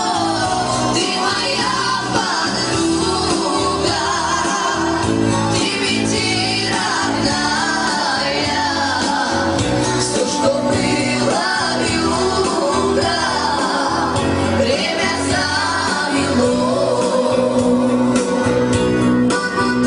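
A Romani song sung over steady instrumental backing with a regular beat.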